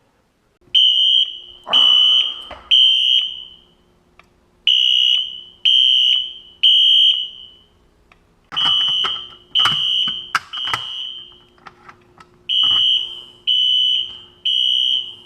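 Fire alarm horns sounding a high electronic tone in the temporal-three evacuation pattern: three tones, a pause, then three again, four times over. The system is in alarm, set off by a conventional smoke detector. A few knocks come in the middle.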